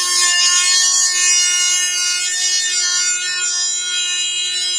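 Table-mounted router running at full speed, a steady high whine, as its mitre lock cutter cuts the joint profile into the end of a board fed along the fence.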